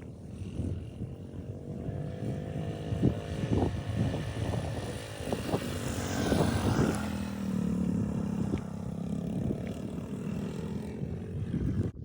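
Motorcycle engine running under way, with wind and road noise. The engine pitch rises over the first few seconds as it accelerates, and the wind noise swells about six seconds in.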